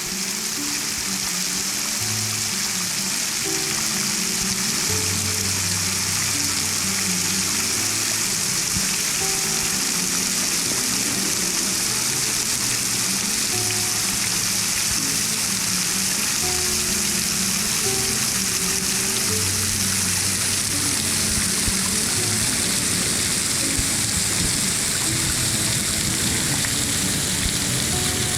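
Steady rush of falling water from a waterfall, with background music of slow, sustained low notes underneath.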